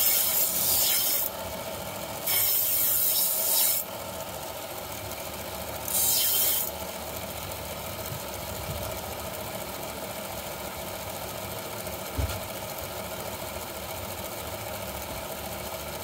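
Blade being ground on a running small belt sander: three grinding passes in the first seven seconds, each a loud hiss of about a second, then the sander running on its own with a steady hum.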